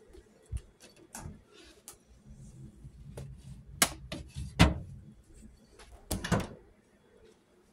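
Plastic containers handled inside a refrigerator, knocking and being set down on its glass shelves: a series of sharp knocks and clatters, the loudest about halfway through.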